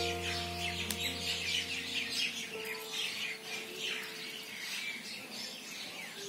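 Birds chirping in quick, repeated calls. Held background-music notes sound under them for the first couple of seconds, then fade.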